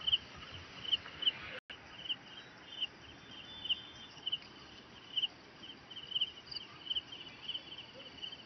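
Crickets chirping in short, high chirps, about one or two a second at irregular spacing, over a faint outdoor hiss.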